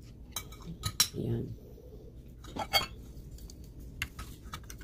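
Utensils clinking against plates and dishes as food is served, a handful of separate light clicks and clinks.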